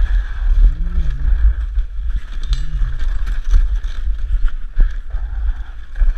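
Dog sled running over snow and ice: a steady heavy rumble with scraping hiss from the sled's runners, picked up by a microphone mounted on the sled. Two short rising-and-falling pitched sounds come about one and three seconds in, and there is a sharp click near the end.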